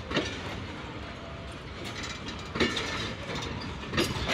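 Pakistan Railways passenger coaches rolling past with a steady rumble, their steel wheels clacking sharply over rail joints a few times.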